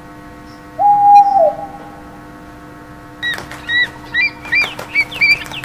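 Owl calling: one held hoot about a second in, then after a pause a run of short, high chirping calls near the end.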